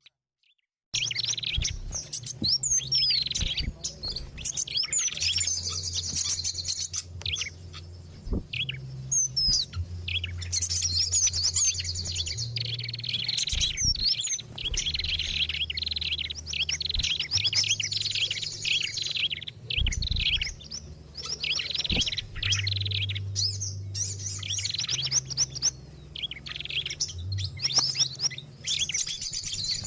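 Bird-trapping lure recording of several small songbirds calling together: dense, continuous high chirping and trilling that starts about a second in, over a low hum.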